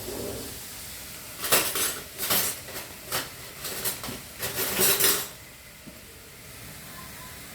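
Metal spoon clinking against steel cookware: a quick run of sharp clinks, starting about a second and a half in and ending after about four seconds.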